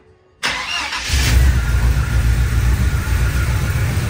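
GM Performance crate 350 small-block V8 starting from cold: a brief crank about half a second in, then it catches and settles into a steady rumbling idle through Thrush Welded mufflers.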